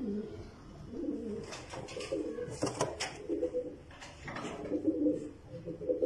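Fancy domestic pigeons cooing: a run of low, repeated cooing phrases, the loudest a little before the end. A few sharp clicks come near the middle.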